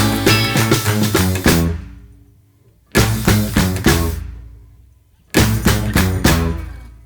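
Background music: an instrumental with drums, bass and guitar that plays in short stop-start phrases, each breaking off and ringing out, with two pauses of about a second.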